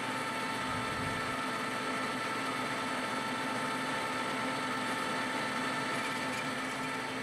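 Colchester Bantam lathe running under power, its headstock giving a steady whine of several tones over an even hum, while the tool takes a light skim cut on a spinning brass bar.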